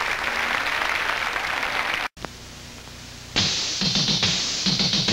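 Studio audience applause over closing theme music that cuts off abruptly about two seconds in, leaving a faint hum. About a second later soft commercial background music begins.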